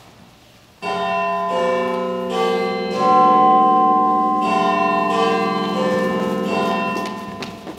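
Church-bell chime: two phrases of four notes each, every stroke overlapping the last and ringing on, fading away near the end.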